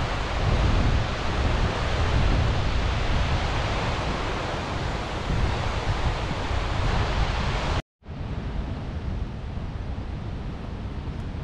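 Steady rushing noise with wind rumbling on the microphone. It cuts out abruptly about eight seconds in and comes back quieter and duller.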